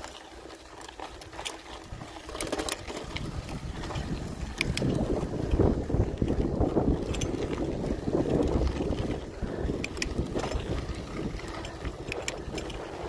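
Wind buffeting the microphone and bicycle tyres rolling over loose volcanic gravel, with scattered small clicks and rattles. The rush grows louder from about four seconds in.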